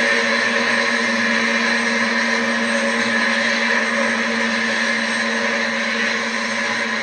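Scale helicopter sound played through the small sound-module speaker in the nose radome of a 500-size RC Seahawk model: a steady, loud running sound with a constant hum and whine.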